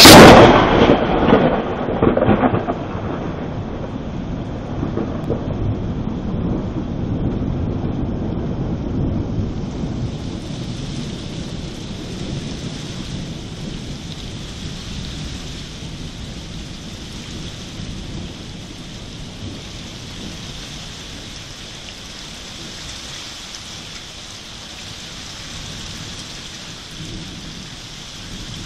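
Thunderclap: a sudden loud crack at the start that rumbles on and slowly rolls away, over steady heavy rain hiss that thickens about ten seconds in.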